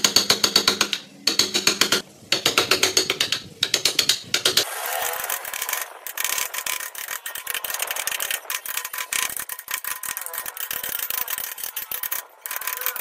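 Carving gouge cutting and paring a wooden block by hand. It starts as a fast run of short cutting strokes, about five or six a second, in quick groups. After about four and a half seconds it turns into a denser, finer scraping of small paring cuts.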